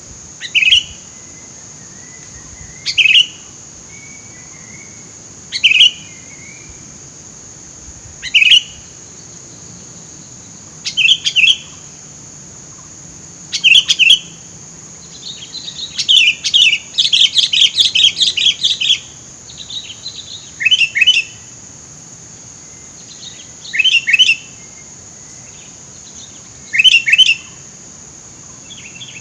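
Sooty-headed bulbul calling: short, loud call phrases repeated about every two and a half to three seconds, with a longer run of rapid chattering calls around the middle. A steady high-pitched hiss runs underneath.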